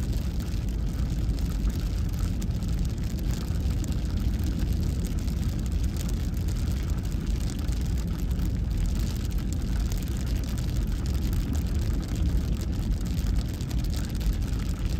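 Steady low road hum of a vehicle driving on a wet highway, heard from inside the cab, with light rain pattering on the windshield.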